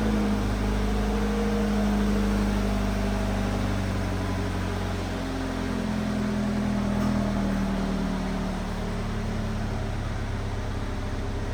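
2020 Subaru BRZ's flat-four engine idling steadily on its stock exhaust after a cold start. The idle tone shifts slightly about halfway through.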